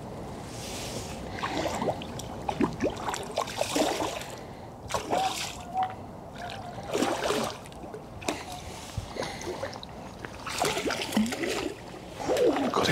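Water splashing and sloshing in irregular bursts as a hooked carp thrashes at the surface while being played in.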